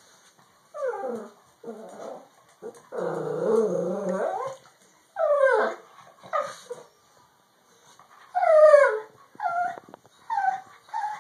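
Pug puppy vocalizing in a string of short whines and yips that drop in pitch, with one longer, rougher drawn-out cry about three seconds in.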